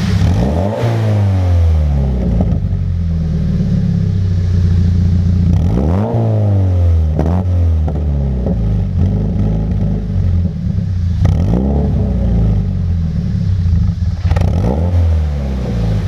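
2014 Subaru BRZ's 2.0 L flat-four boxer engine breathing through a new MXP Comp RS cat-back exhaust, idling and revved up and down about four times, short of redline. Crackles and pops come from the exhaust as the revs drop.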